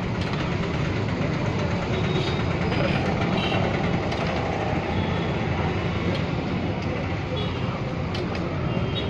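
Steady low rumble of street noise with indistinct voices in the background.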